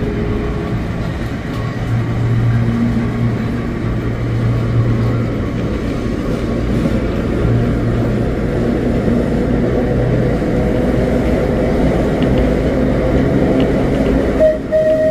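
A tram running along its rails, heard from on board: a steady rumble of wheels and running gear with a low hum. Near the end a steady whistle-like tone starts suddenly.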